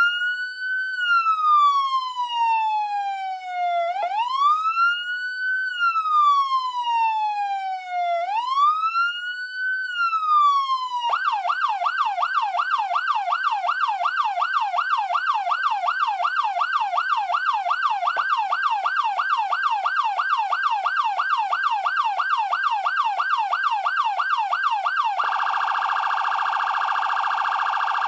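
SoundOff Signal nERGY 400 electronic siren amplifier playing its tones. First comes a wail, each cycle rising quickly and falling slowly, about three times. About eleven seconds in it switches to a rapid yelp of about three sweeps a second, and near the end to an even faster warble.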